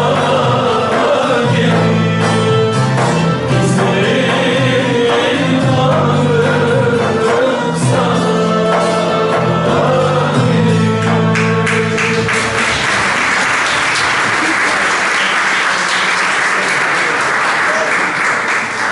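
Turkish folk ensemble of bağlamas and other long-necked lutes playing with singing; the song ends about twelve seconds in and is followed by applause.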